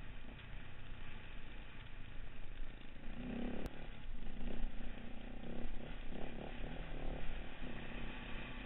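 Dual-sport enduro motorcycle engine running under a steady noisy rush as the bike rides a rough dirt track; the engine gets louder and pulls harder from about three seconds in.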